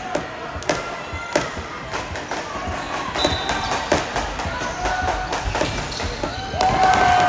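Basketball being dribbled and bounced on a hardwood court in a gym, with repeated sharp bounces and short rubber-sole sneaker squeaks. A louder, longer squeal that slides down in pitch comes near the end.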